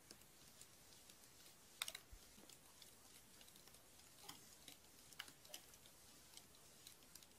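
Near silence outdoors with a few faint, irregular clicks and ticks, the strongest small cluster about two seconds in.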